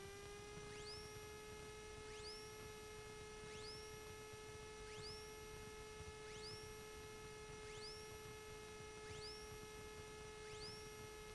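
Faint electrical whine in a light aircraft's headset intercom audio: a steady hum-like tone with a short rising chirp that repeats about every one and a half seconds.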